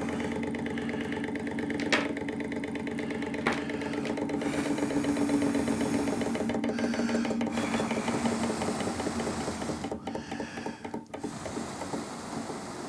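Small Stirling engine driving a magnet-flywheel generator, running with a fast mechanical clatter and hum, then slowing and growing uneven over the last few seconds as it runs down after being turned off. Two light clicks about two and three and a half seconds in.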